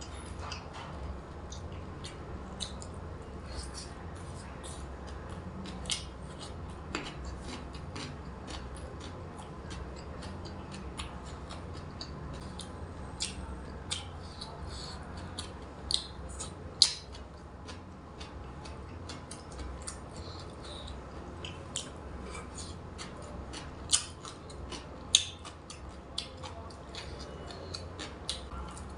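Eating sounds close to the microphone: chewing and wet lip smacks with scattered sharp clicks, a few of them much louder.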